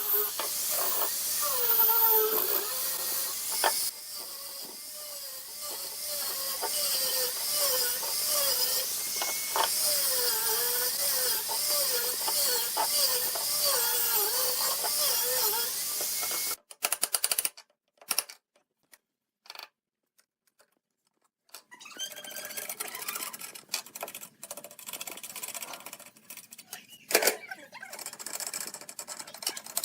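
Power-tool and workshop sounds: a wavering whine that keeps rising and falling in pitch for about the first half. It cuts out abruptly to near silence broken by a few clicks, then gives way to a noisier stretch with a sharp knock near the end.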